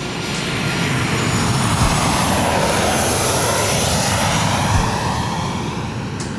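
An aircraft passing overhead: a broad engine rumble that swells to a peak a few seconds in and then fades, its pitch sliding slowly down as it goes over.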